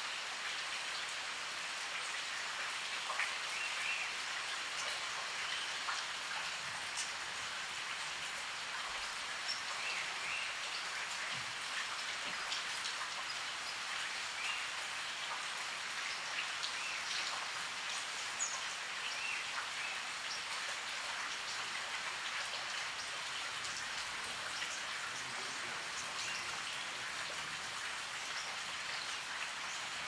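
Steady rain falling, with scattered nearby drops heard as small ticks.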